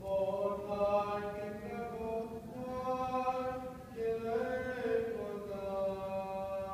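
Byzantine chant: a solo male voice in long, drawn-out melismatic notes that step up and down, with a steady low note held beneath.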